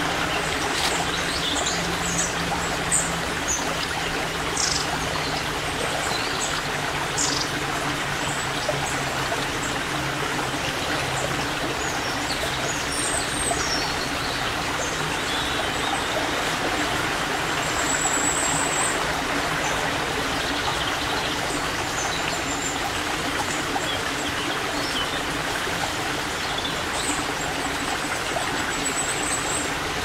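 Small mountain stream running steadily over stones with a constant rushing trickle. Short high chirps come and go over it in the first several seconds, and there is a brief high trill about midway.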